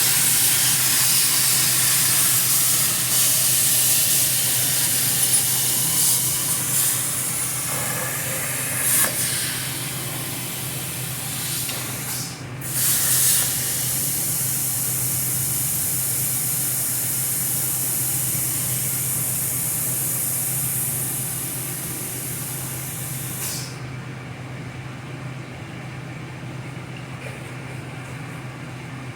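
Steady loud hiss of a pressurised spray or air jet over a steady low hum. The hiss drops out briefly about twelve seconds in, then cuts off suddenly near the end, leaving only the hum.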